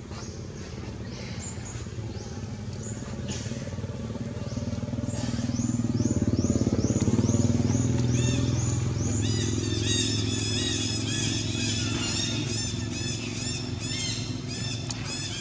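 A low engine hum, like a passing motorbike, that swells about six to eight seconds in and then eases off. Over it runs a fast, even series of short high chirps that grow louder and fuller in the second half.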